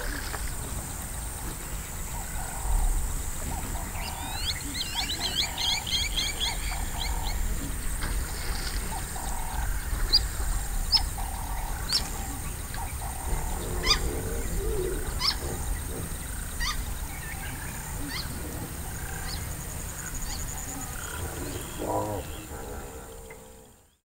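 Wild riverside ambience at dusk: birds chirping and calling over a steady high-pitched hum, with a quick run of chirps a few seconds in and scattered sharp calls later, some lower animal calls near the end, fading out at the close.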